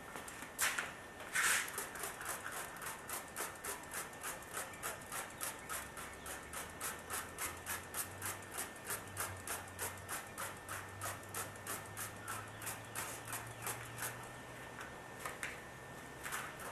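Steady back-and-forth rubbing on a plastic headlight lens, about three hissy strokes a second, working a cleaning compound into the lens.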